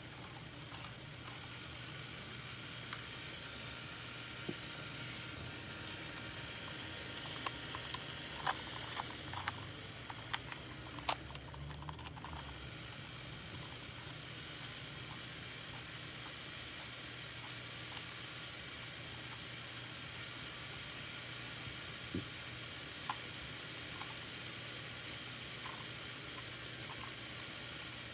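Small LEGO electric motor running in a LEGO jet-engine model, giving a steady high hissing whir that builds up over the first few seconds. About a third of the way through it dies away briefly with a few sharp clicks and rattles, then runs steadily again.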